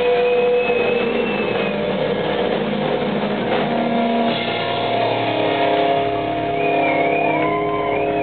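Two electric guitars played live through amplifiers, ringing out in long held notes and chords. A wavering high tone comes in near the end.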